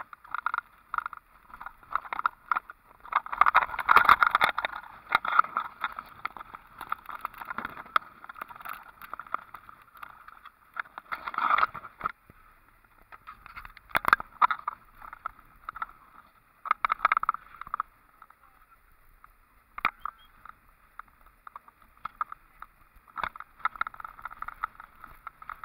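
Vehicle driving along a rough dirt road, with irregular bumps, knocks and rattles coming and going in bursts.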